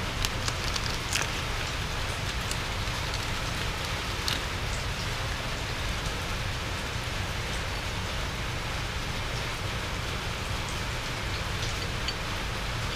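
Steady patter of water falling on a wet concrete floor. A few light metallic clicks come in the first few seconds as a brake-shoe return spring and shoes are handled.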